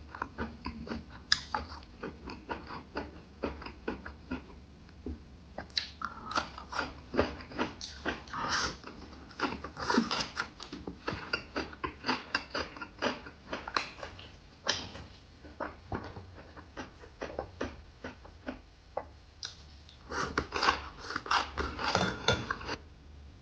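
Close-up eating sounds of a man chewing pan-fried pork intestines and kimchi: irregular wet smacks and crunchy bites, busiest in the middle and again near the end, over a faint low hum.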